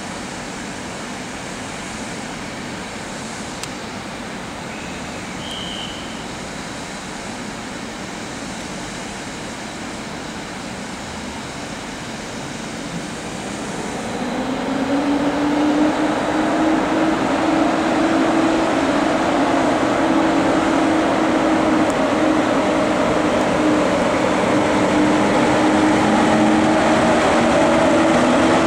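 EP07 electric locomotive pulling a passenger train away from the station. A steady rumble grows louder about halfway through, as the locomotive's motor hum comes in and rises slightly in pitch while it accelerates up to the camera.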